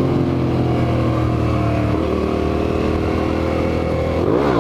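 2008 United Motors V2S 650R motorcycle engine running under the rider, with wind noise on the helmet microphone. The engine note sinks slowly, then near the end the revs swing quickly up and back down, a failed try at lifting the front wheel into a wheelie.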